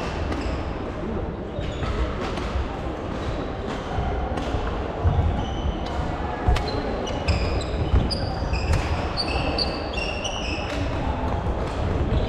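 Badminton play echoing in a sports hall: many short, high trainer squeaks on the wooden court floor, thickest in the second half, with sharp racket strikes on a shuttlecock, over a steady background of distant voices.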